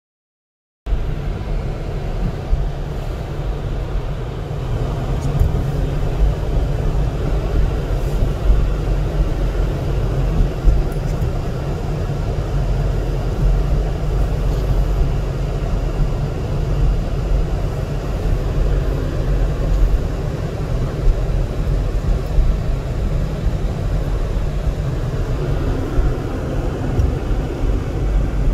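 Steady low rumble of a moving car's road and engine noise, heard from inside the cabin. It starts abruptly about a second in.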